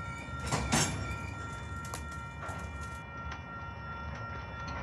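Covered hopper cars of a grain train rolling slowly past, wheels clicking and cars clanking, with one loud clank under a second in. A steady high ringing tone sits under it throughout.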